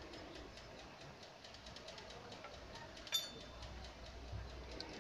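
Faint workshop background with one sharp metallic click about three seconds in that rings briefly. It is metal-on-metal contact as a form tool is fitted by hand into the rear tool holder of a stopped automatic lathe.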